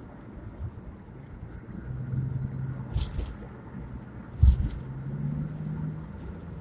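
Car engine and road rumble heard from inside the cabin while driving, the engine note rising in pitch as the car accelerates. A couple of dull thumps, the loudest about four and a half seconds in.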